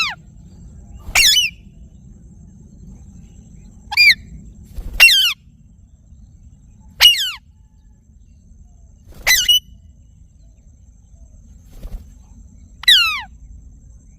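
A green parakeet giving short, harsh squawks, each one sweeping quickly down in pitch. There are about six or seven calls, one to three seconds apart, with a faint low hum between them.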